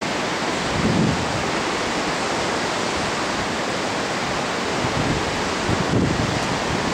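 Steady rushing noise, with low rumbling swells about a second in and again near the end.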